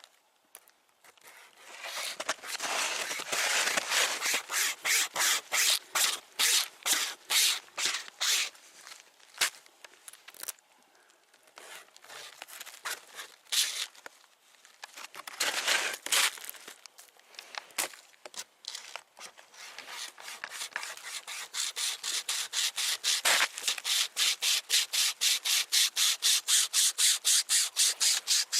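A flexible string saw drawn back and forth through wood, giving a rasping stroke with each pull. The strokes come steadily, break off briefly twice around the middle, then quicken and grow louder over the last third.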